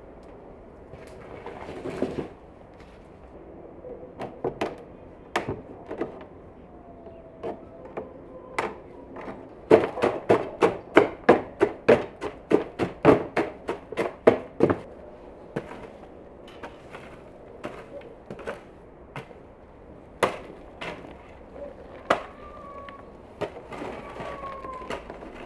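A garden hoe chopping into dry soil: a quick run of sharp strikes, about three a second, in the middle, with single strikes before and after.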